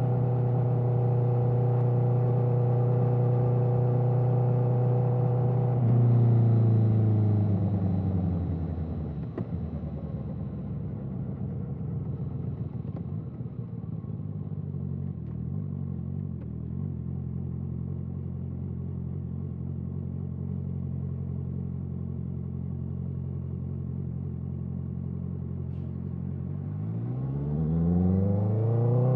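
Honda CBR650R inline-four with an Akrapovic exhaust, held at steady revs for the first few seconds. The revs then fall away to a steady idle that lasts most of the time, and climb again near the end.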